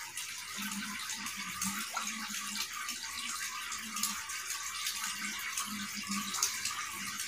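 A steady, even hiss with faint low hum patches coming and going, heard in a pause between the narrator's words.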